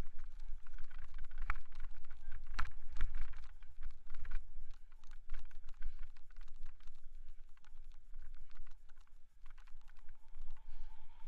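Rattling and clicking of a bicycle and its mounted camera jolting over a snowy trail: a fast, uneven run of small knocks over a low rumble, busiest in the first half and thinning out near the end.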